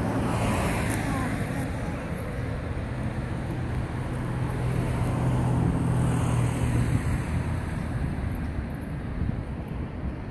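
Motor vehicle engine running, a low hum that swells over several seconds and fades after about seven seconds, over a steady haze of traffic noise.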